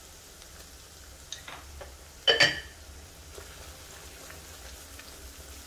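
Ground garlic paste frying in oil in a steel kadai, sizzling faintly with light crackles as it is stirred, and one sharp metallic clink a little over two seconds in.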